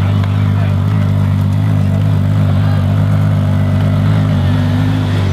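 Car engine running steadily at a constant low pitch, with no revving.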